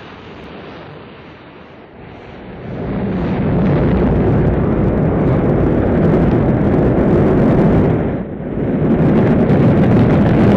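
Rocket engines at liftoff: a loud, deep, steady roar that swells about three seconds in and dips briefly around eight seconds before coming back.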